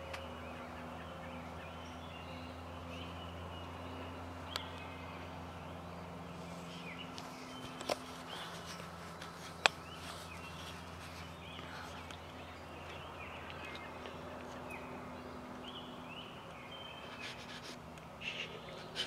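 Quiet woodland with faint, scattered short bird calls over a steady low hum. A few sharp clicks stand out, the loudest a little past the middle.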